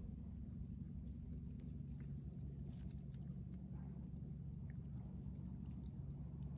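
Tabby cat chewing fresh fish, with faint irregular clicks and smacks of eating over a steady low background hum.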